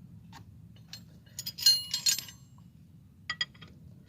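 A steel wrench clinking against a 17 mm bolt and the surrounding metal as it is fitted and worked: a cluster of sharp, ringing metal clinks between about one and a half and two and a half seconds in, then two short clinks near the end.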